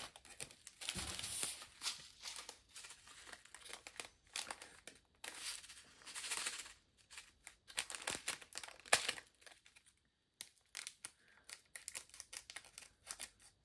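Small plastic bags of diamond-painting drills crinkling as they are handled, with many small clicks and ticks scattered throughout.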